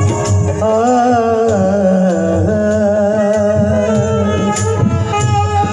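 Live ghazal music: a harmonium melody with held, wavering notes over hand-drum accompaniment. Sharp, regular drum strokes come in more clearly in the second half.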